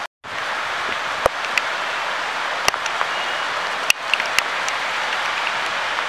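Storm rain and wind making a steady hiss, with a few sharp ticks scattered through it.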